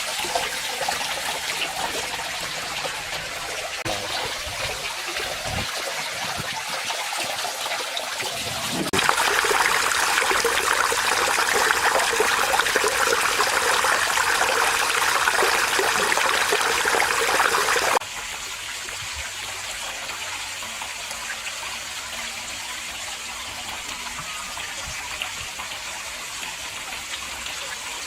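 Water splashing and trickling steadily over a garden fish pond's waterfall. The sound jumps louder about nine seconds in and drops back quieter about eighteen seconds in.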